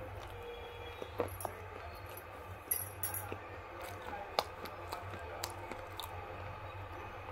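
Mouth sounds of someone chewing ground-up slate pencil: scattered wet clicks and a few short crunches, a cluster of them about three seconds in, over a steady low hum.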